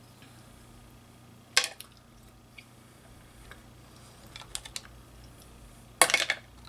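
Hard seafood shells clicking and cracking as mussels and crab legs are handled and opened, in short bursts of sharp clicks: one about a second and a half in, a few around four and a half seconds, and the loudest rapid cluster near the end.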